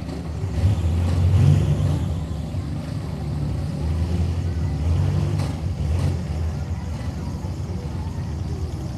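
Truck engines running and revving: a deep, steady rumble that swells about a second in and again around the middle.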